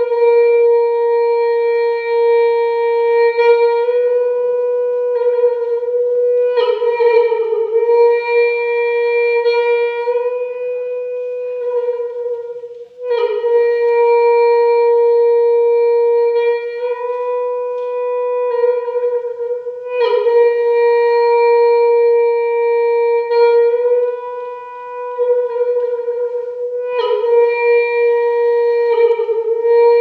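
Khmer horn blown in one long steady note, renewed with a fresh, slightly rough attack four times, about every six to seven seconds.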